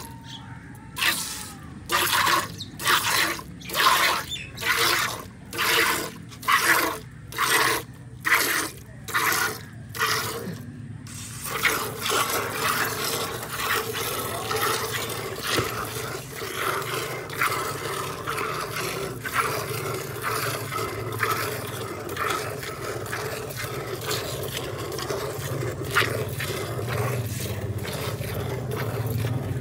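Cow being milked by hand into a steel pail: squirts of milk striking the pail in a regular rhythm, about three every two seconds. After about eleven seconds it turns into a faster, continuous streaming as two hands work the teats into milk already in the pail.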